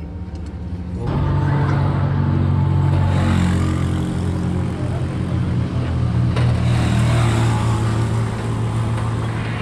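Mitsubishi Fuso truck's diesel engine catching about a second in, then running steadily.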